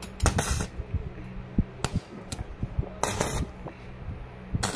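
Stick (arc) welder tacking a small square steel rod onto a stainless steel rod: three short crackling bursts as the arc is struck, about a third of a second in, at about three seconds, and near the end, over a steady low hum.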